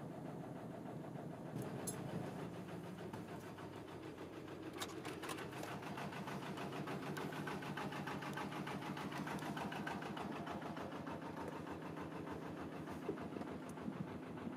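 Narrowboat engine running steadily under way, with a fast, even beat.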